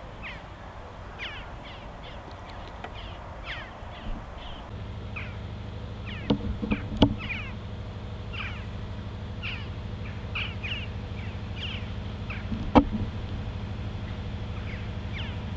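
Birds calling over and over in short, sharp notes, each dropping in pitch. A steady low hum comes in about five seconds in, and a few sharp knocks sound around seven and thirteen seconds in.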